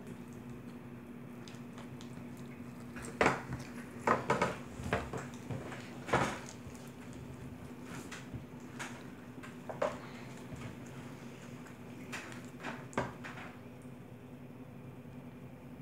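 Glitter slime packed with plastic beads and gems being kneaded and squeezed by hand, giving irregular clicks and short crackles, in clusters with pauses between. A steady low hum runs beneath.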